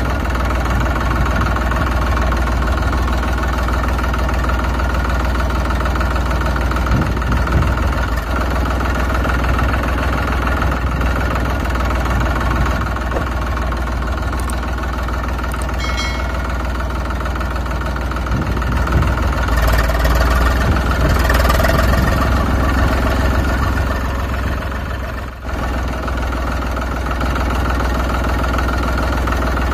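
A tractor engine sound effect runs steadily at idle, a constant drone with a short high blip about 16 seconds in and a brief dip in loudness near 25 seconds.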